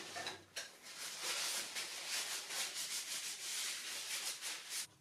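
Paper towel rubbing briskly over linseed-oiled wooden spoons to wipe off the excess oil: a continuous dry rustling scrub of quick strokes, starting about half a second in.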